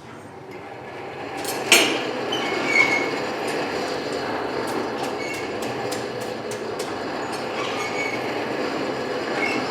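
A blacksmith's forge fire being blown up to forge-welding heat: a steady rush of air through the fire that swells over the first second or two. A sharp metallic clank comes about two seconds in, with a lighter knock just after and faint crackles from the fire.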